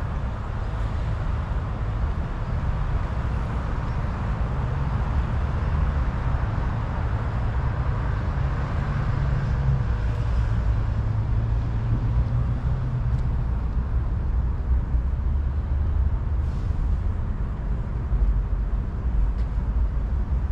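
City road traffic: a steady low rumble of passing vehicles.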